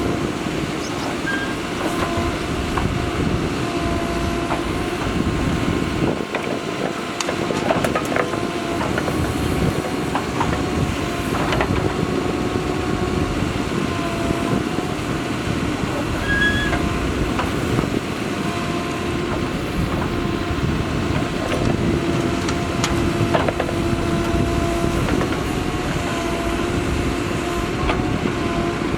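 Mahindra Earthmaster SX backhoe loader's diesel engine running steadily as it works, with a few scattered knocks.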